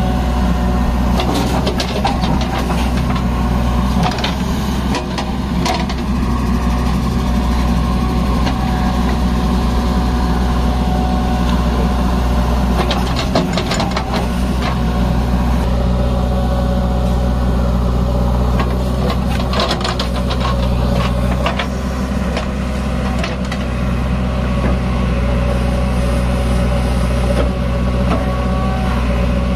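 JCB backhoe loader's diesel engine running steadily as it digs earth and loads it into a steel tipper truck body, with several short bursts of clattering from the bucket and falling soil.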